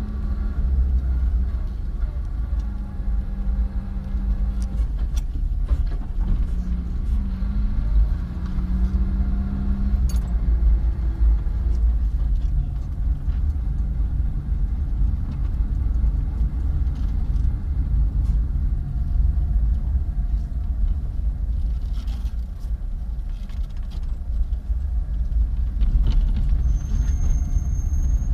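Car driving at low speed: a steady low rumble of engine and tyres on the road. An engine hum holds for the first ten seconds or so, then sinks into the road noise.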